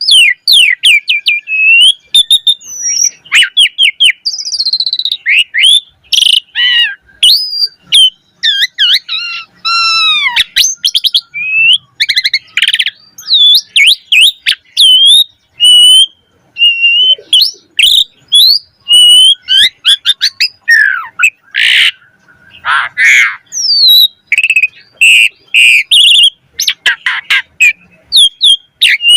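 Asian pied starling (jalak suren) singing a long, varied song: clear rising and falling whistles, rapid chirp series and harsh rasping notes, broken by short pauses. It is in lively full song with mimicked 'isian' phrases.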